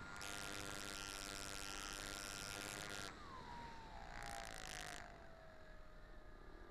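Engine of a 3/4-scale radio-controlled Piper Cub heard from a camera on board: a steady whining tone that drops in pitch about three seconds in as the engine slows, with stretches of rushing wind noise over it.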